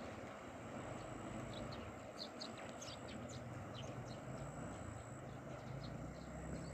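Steady rush of a flooding river's turbulent, surging water, with a low hum underneath. Small birds chirp repeatedly over it.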